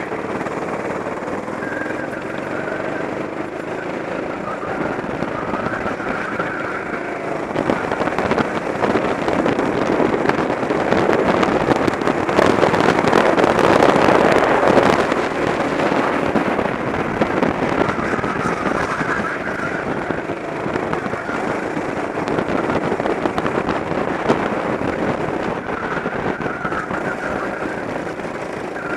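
Go-kart engine running at racing speed with heavy wind noise on the kart-mounted camera's microphone, rising in level to its loudest about halfway through, then easing.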